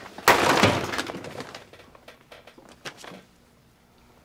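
A brief rustling hiss that fades over about a second, then a few faint light clicks and taps, like handling noise in a quiet room.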